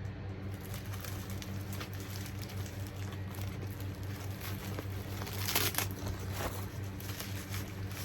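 Plastic packaging crinkling and rustling in short bursts as items are unpacked, loudest about five and a half seconds in, over a steady low hum.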